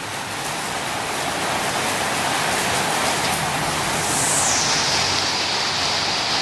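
Steady rain falling on a tin roof, an even hiss. About four seconds in, a high-pitched hiss slides down in pitch and then holds steady.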